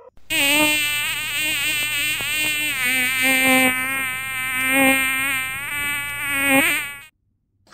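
Buzzing of a flying insect such as a housefly, its pitch wavering up and down as it moves about, then cutting off suddenly near the end.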